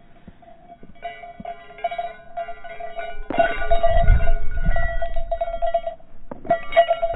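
Harris hawk's falconry bells jingling as it flies in and lands on the glove. A heavy low buffeting of wingbeats comes with the landing about three seconds in.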